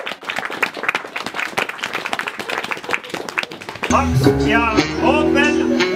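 Audience clapping, then about four seconds in live music starts on a plucked string instrument: held low notes under wavering, bending higher notes.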